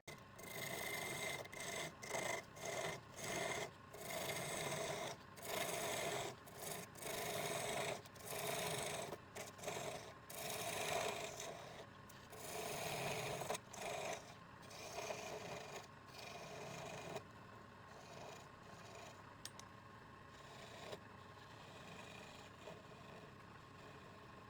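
Rasping strokes against wood, coming about once a second, then giving way to a quieter steady rubbing about two-thirds of the way through.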